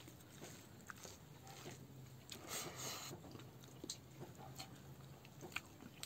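Fingers mixing rice and food on a plate: faint, soft sticky squishes and small clicks, with a brief louder rustle about two and a half seconds in.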